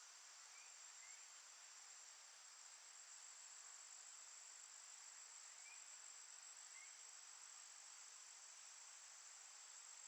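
Faint, steady high-pitched insect chorus, like crickets, with four faint short rising chirps in two pairs, early on and just past the middle.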